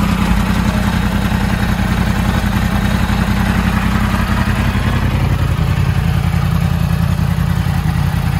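Yamaha YZF-R1's freshly overhauled inline-four engine idling steadily, its note settling a little lower about five seconds in.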